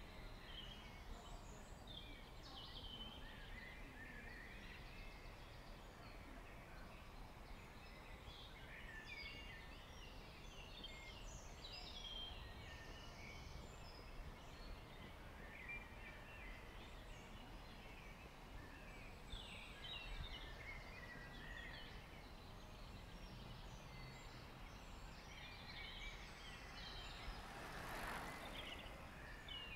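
Faint evening birdsong: several small birds singing in short chirps and trills over a steady low background rumble. Near the end a brief, louder rushing noise lasts about a second.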